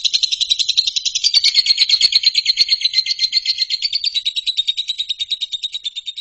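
A fast, even, high-pitched trill of rapid pulses, roughly a dozen or more a second, from a singing animal; it fades away over the last couple of seconds.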